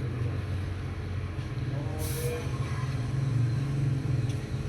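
A vehicle engine running steadily with a low hum, with a short hiss about two seconds in.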